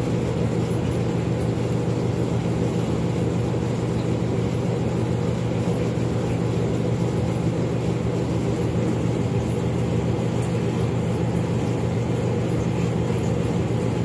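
Air conditioner running, a steady low hum that holds the same level throughout.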